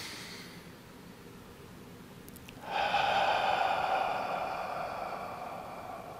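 A man's deep breathing, close to the microphone: a short inhale at the start, then about 2.7 seconds in a long, breathy open-mouthed 'ha' exhale that slowly fades away, part of a slow qigong breathing exercise.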